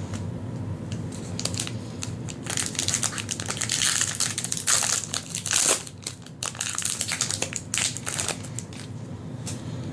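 A Magic: The Gathering booster pack's foil wrapper crinkling and being crumpled as the pack is opened, in a run of rustling bursts from about two seconds in until about eight seconds in, loudest around the middle.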